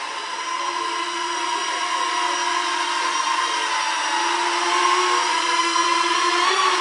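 Small ducted quadcopter drone's electric motors and propellers whining steadily, growing louder as it comes closer, the pitch wavering near the end as the throttle changes.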